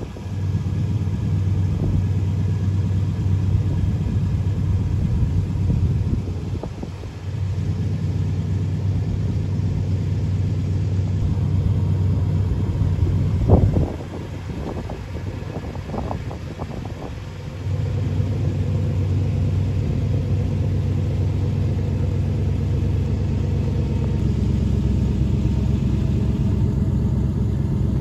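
A steady low rumble that drops away briefly about six seconds in and again for several seconds from about fourteen seconds in, with a few short knocks around the second drop.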